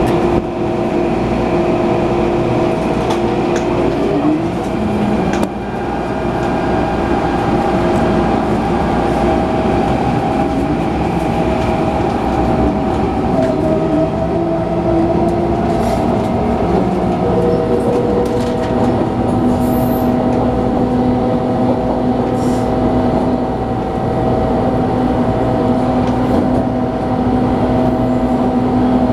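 MTR A-Train electric multiple unit heard from inside the car, running at slow speed: a steady rumble of wheels on rail with several steady motor tones that shift in pitch now and then.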